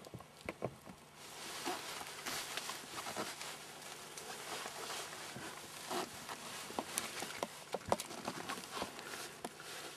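Close rustling with many scattered sharp clicks and crackles inside a fabric hunting blind as the camera and the hunter shift about. It starts about a second in and keeps up steadily.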